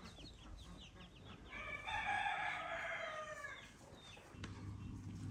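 A rooster crows once: one call of about two seconds that drops in pitch at the end. It is preceded by a run of quick high chirps, and a steady low hum starts near the end.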